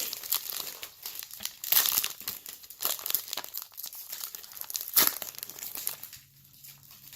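Glossy Panini Prizm trading cards being flipped and slid through by hand, an irregular run of scrapes and flicks, the sharpest about two and five seconds in.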